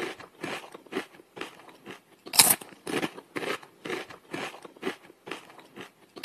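Someone chewing crunchy chips close to a studio microphone: irregular crunches two or three a second, one louder crunch about two and a half seconds in.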